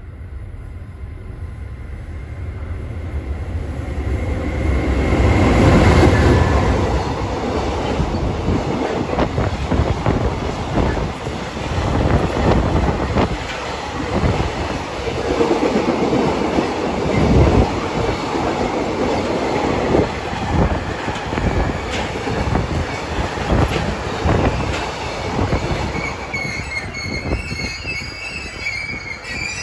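A freight train of empty container flatcars rolls past close by, its wheels clacking rhythmically over the rail joints. Near the end a high wheel squeal sets in as a train slows at the platform.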